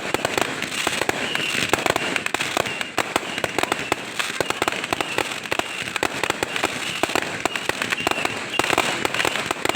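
Fireworks going off in a dense, continuous crackle of many rapid pops a second, with a faint high wavering tone underneath.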